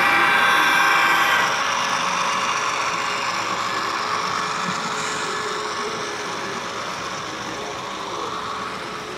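Model diesel locomotive leading a double-stack container train past: steady running sound with a held pitched tone that ends about a second and a half in, then slowly fading as the train moves off.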